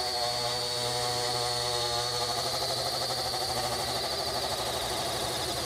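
Parrot Bebop 2 quadcopter's motors and propellers whining as it hovers, a stack of steady tones that starts to waver in pitch about two and a half seconds in. The drone is turning by itself, and the pilot absolutely doesn't like how it sounds.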